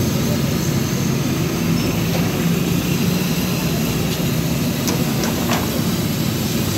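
Steady roar of a street frying stall: gas burners and potato fries bubbling in large pans of hot oil, with a few sharp clicks about five seconds in.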